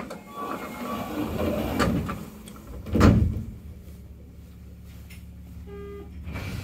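Sliding doors of a Tokyu 8500-series commuter train closing, with one loud thud about three seconds in as they shut, then the car's steady low hum and a brief electronic tone near the end.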